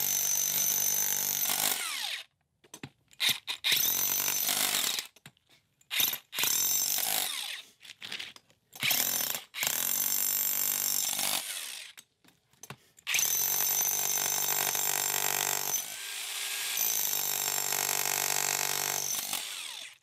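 Bosch 60-pound jackhammer pounding concrete in a string of bursts of one to three seconds with short pauses between them. Near the end a smaller cordless jackhammer takes over, chipping out a corner of the slab.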